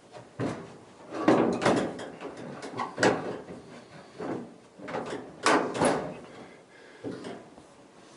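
Irregular metallic knocks and clunks from parts being handled inside an opened Speed Queen dryer cabinet while its drive belt is fitted around the drum, about eight in all.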